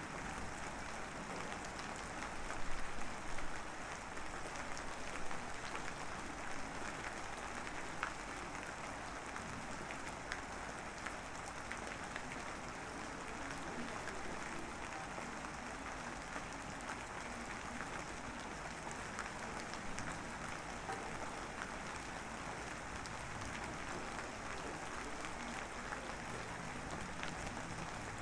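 Drizzling rain: a steady hiss with scattered individual drops ticking, a few louder patters about three seconds in.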